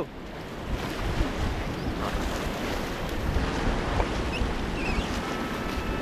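Rushing whitewater of a river rapid around a paddled raft, with wind buffeting the microphone. The rush swells over the first second and then holds steady.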